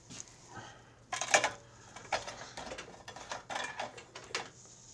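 Clicks and scrapes as a snowblower engine's dipstick is pulled out and pushed back in to check the oil level, with a sharp clack about a second in.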